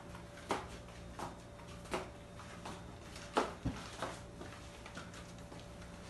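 Light knocks and clicks of a rolling walker being pushed over a wooden floor with slow steps, a few each second, the sharpest about three and a half seconds in, over a steady low hum.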